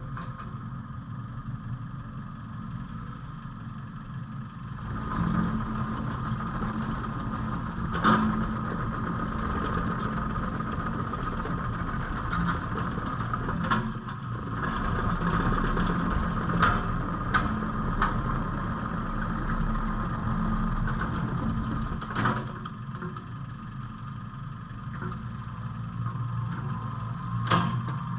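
JCB 8085 midi excavator's diesel engine running steadily, working harder from about five seconds in, with several sharp metallic clanks.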